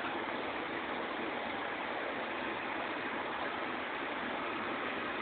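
Steady, even rush of running water from aquarium tank filtration and aeration.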